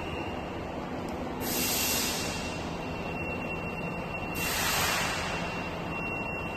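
Steady factory-floor machinery noise with a faint high whine, broken twice by a burst of hissing, about a second and a half in and again about four and a half seconds in.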